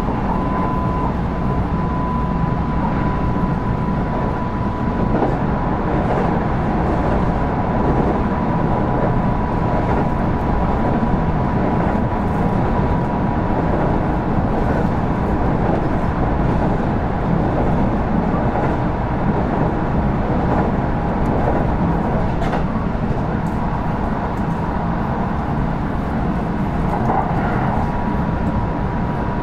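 Kintetsu 5200 series electric train running at speed, heard on board: a steady rumble of wheels on rail with a constant thin whine over it, which fades for a few seconds in the later part and then comes back.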